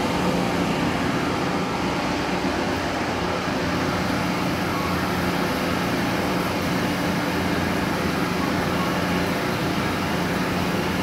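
Heavy-duty lathe running steadily while its tool cuts grooves into a large steel roll: a constant machine hum with a low steady tone under an even haze of cutting noise.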